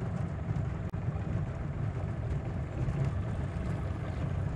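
Small fishing boat's outboard motor running at low speed: a steady low rumble with water noise.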